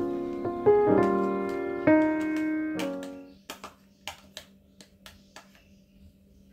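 Piano music that fades out about three seconds in, followed by a metal spoon clicking and tapping against a small bowl several times as sliced spring onions are scraped out into minced chicken.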